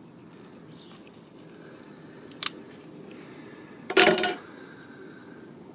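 Handling noises at a small steam boiler's firebox while a firelighter is set to be lit: a light click about two and a half seconds in, then a louder short clatter around four seconds, over a low steady background noise.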